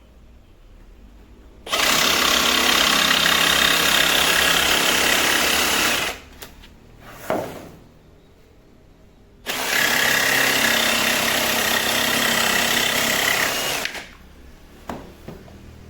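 A power tool running in two bursts of about four seconds each, starting and stopping abruptly, with a few short knocks between and after them.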